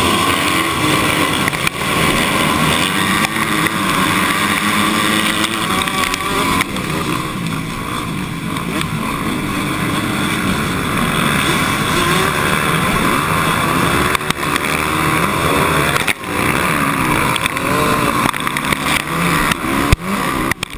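Motocross bikes launching from the starting gate and racing, heard from a camera on one of the bikes. Its own engine dominates at full throttle, the note rising and falling as the rider shifts, with a brief drop in the engine about 16 seconds in.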